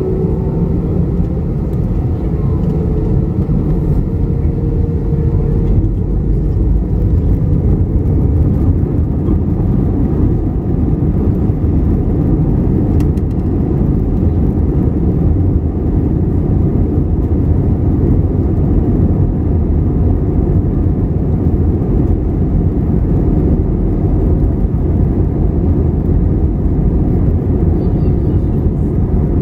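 Airbus A321 jet engines and airframe heard from inside the cabin over the wing: a loud, steady low rumble. A faint engine whine rises slightly in the first seconds and fades out about six seconds in.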